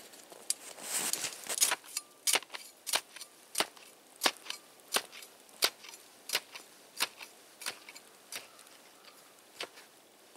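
Folding shovel blade chopping into snow while digging a trench: a steady run of sharp strikes, about one and a half a second, thinning out near the end.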